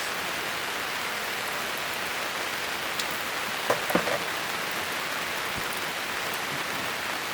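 Steady rain falling and pattering on surfaces, with a few small knocks about four seconds in.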